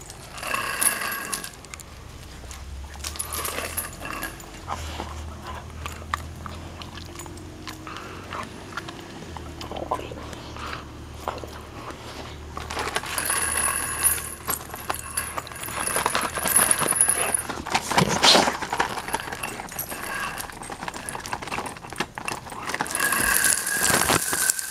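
A dog's metal chain leash clinking and rattling on and off, mixed with rustling and knocks from handling.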